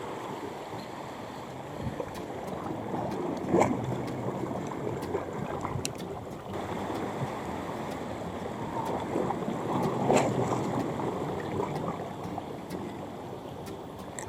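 Waves washing and sloshing along a rocky reef shore, with wind on the microphone; two louder splashes come about three and a half seconds and ten seconds in.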